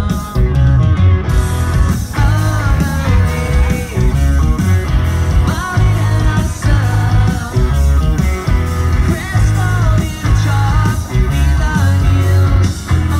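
Live rock band with electric guitars, bass and drums playing loudly through the festival PA, recorded on a phone from inside the crowd.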